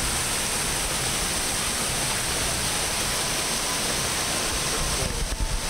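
A mountain stream cascading over rocks, with a steady rushing sound. A few low thumps come near the end.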